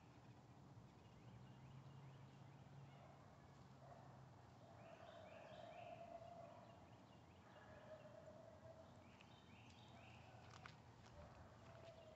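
Near silence outdoors, with faint distant bird calls: short runs of quick falling notes about five seconds in and again near the end, and a couple of faint clicks.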